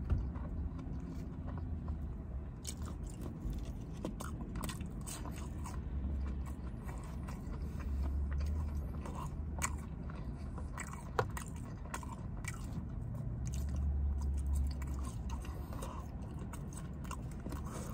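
Close-miked chewing and lip-smacking as a person eats a fast-food burger and fries, with many short wet mouth clicks.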